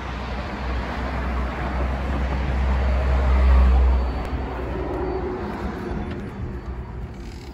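Low rumble of road traffic heard outdoors, swelling to its loudest about three and a half seconds in, then falling away about four seconds in as the entrance door is passed into the quieter store.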